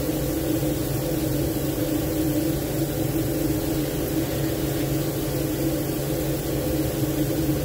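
Steady machinery hum: a low drone with a few higher held tones above it, unchanging throughout.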